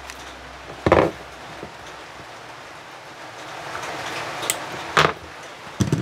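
Workbench handling sounds: short knocks and rustles about a second in and twice near the end, as monofilament shock leader is drawn off its spool and the spool and pliers are handled on the wooden bench, over a steady low hiss.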